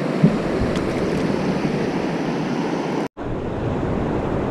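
Steady rush of water pouring over a low-head dam spillway, with one short knock just after the start and a brief gap about three seconds in.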